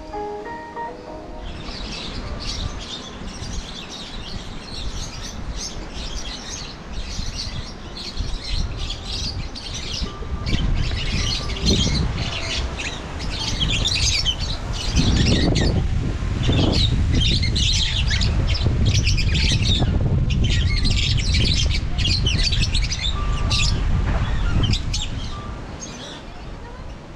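Many birds chirping and squawking in a busy, overlapping chorus, with a low rumble that builds about a third of the way in and fades near the end.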